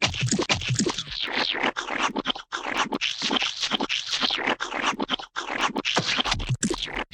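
A dense, continuous run of wet, squelching glop sounds, the kind made by thick paint or slime being splattered, smeared and slapped, with brief gaps here and there.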